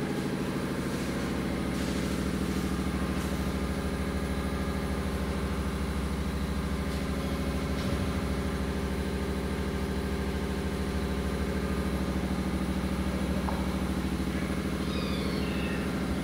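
A steady engine hum of even, unchanging pitch, with a few short high chirps near the end.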